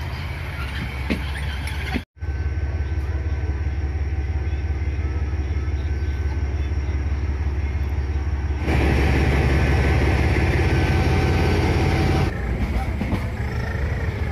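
Narrow-gauge toy train running slowly alongside a station platform: a steady low rumble of the train. The sound drops out for an instant about two seconds in and is louder for a few seconds after the middle.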